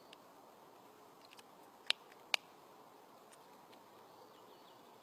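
Two sharp clicks about half a second apart, about two seconds in, from a vape mod being handled in the hands, with a few fainter ticks just before, over a faint steady outdoor background.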